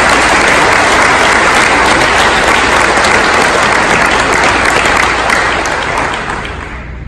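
Audience clapping loudly and steadily, tapering off over about the last second.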